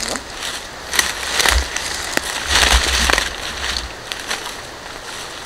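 Footsteps crunching through dry leaf litter and twigs on the forest floor, an irregular run of crackles that is loudest around the middle and dies away near the end.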